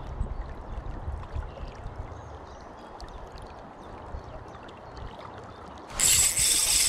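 Wind rumbling low on the microphone over running river water. About six seconds in, a spinning reel suddenly whirs loudly with a thin high whine as a fish is hooked.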